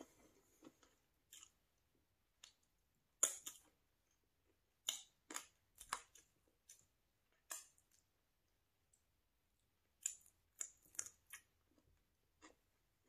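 Close-miked eating mouth sounds: irregular sharp, wet lip smacks and mouth clicks while chewing, with fingers being licked around the middle.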